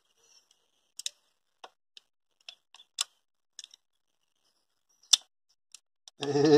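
Vise-Grip locking pliers clicking and tapping on the metal fittings of a diesel tractor's fuel injection pump as a fitting is loosened to bleed air from the fuel system: about a dozen short, sharp clicks at uneven intervals. Near the end a sustained, wavering pitched sound begins.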